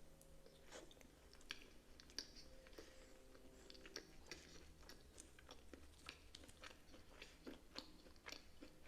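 Faint, close-up chewing of a banana caramel cookie: irregular soft mouth clicks and small crunches, with a low hum underneath.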